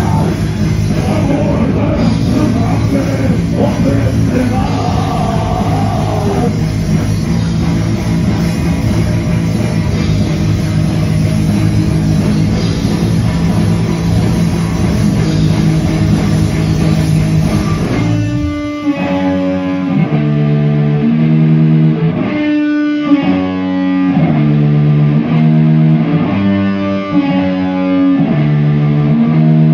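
Extreme metal band playing live, with heavily distorted electric guitar, bass and drums in a dense wall of sound. About 18 seconds in, the low end and drums drop out, leaving a distorted electric guitar playing a riff of separate single notes.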